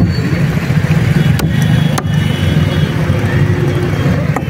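Steady low rumble of a vehicle engine running close by, with about three sharp knocks of a heavy knife chopping through fish on a wooden block: one about a second and a half in, one at two seconds, one near the end.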